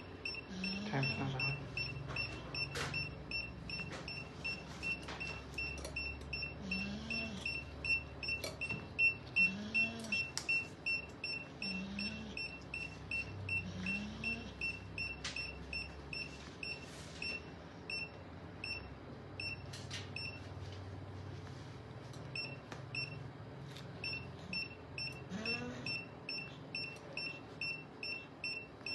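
Surgical patient monitor beeping steadily, a high tone about twice a second, keeping time with the anaesthetised cat's pulse. A few sharp clicks sound now and then.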